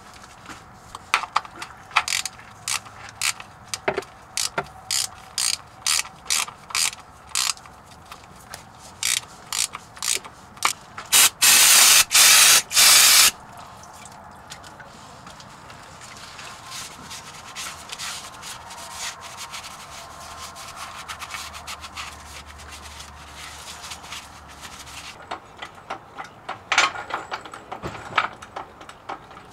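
Ratchet wrench clicking in short runs as it works a plug on a Ford F-150's BorgWarner transfer case. About eleven seconds in comes a loud rush of noise lasting about two seconds, then a quieter steady trickle as the transfer case fluid drains; a few clicks return near the end.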